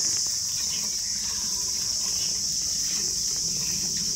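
Crickets or other insects chirring in a steady, high-pitched, unbroken drone. Underneath are faint, irregular squirts of milk hitting a steel bucket as a water buffalo is milked by hand.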